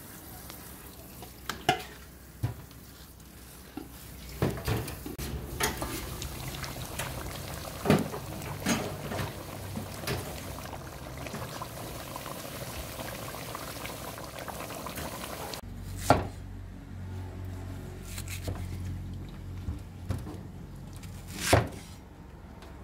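Steel ladle clinking and knocking against an aluminium stockpot as soup is stirred and scooped, over the sound of the broth simmering. Later, two loud knocks of a cleaver blade on a wooden chopping board.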